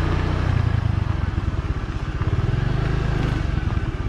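Small motorbike engine running at low speed, a steady low putter with a light hiss of road and air noise over it.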